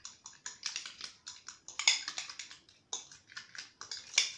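Metal spoon stirring mayonnaise in a glass bowl, clicking and scraping against the glass in irregular strokes, a few a second.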